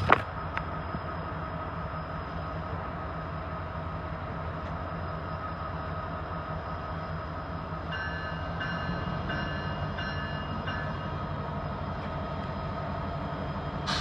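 Idling freight train's diesel locomotives: a steady low rumble with a faint steady whine above it. A sharp knock right at the start, and a run of short repeated beeps from about eight to eleven seconds in.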